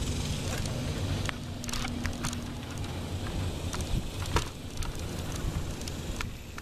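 Wind rumbling on the microphone and the rolling noise of bicycles riding along a concrete sidewalk, with irregular clicks and ticks scattered through it.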